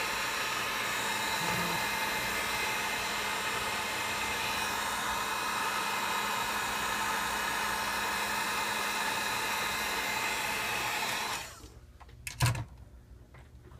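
Handheld hot-air tool blowing steadily with a whining fan, switched off about eleven seconds in, followed by a couple of small clicks.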